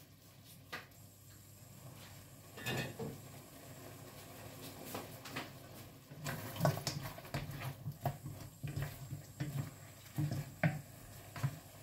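Spatula scraping and knocking against a metal wok as nearly finished adobo is stirred: irregular clicks and scrapes, sparse at first and more frequent from about halfway in.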